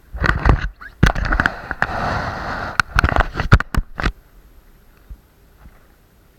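Loud crackling and sharp knocks right on the microphone for about four seconds, then stopping abruptly: close-up noise on the recording device itself.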